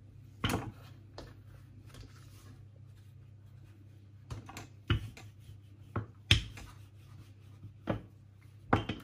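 Wooden rolling pin knocking and clacking against a wooden chopping board as pastry is rolled out and the pin is set down and picked up: about seven scattered sharp knocks, the loudest a little past six seconds in.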